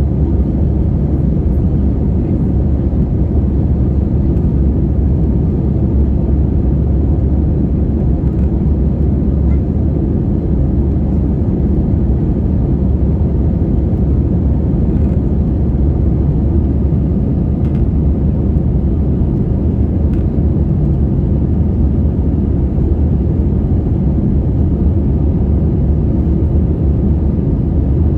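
Airbus A320-214's CFM56-5B jet engines and airflow heard from inside the passenger cabin as a steady, even low rumble.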